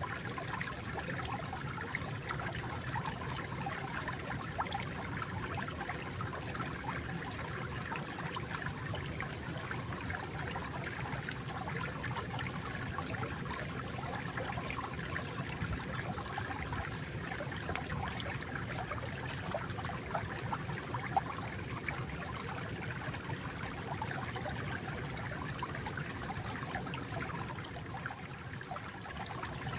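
Water flowing steadily in a small stream, with a continuous trickling and babbling over a low rushing undertone.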